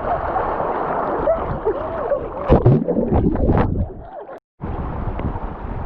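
Fast creek water rushing and splashing around a person sliding down a natural rock water chute, with a few louder splashes and cries around the middle. The sound cuts out for a moment about two-thirds of the way through.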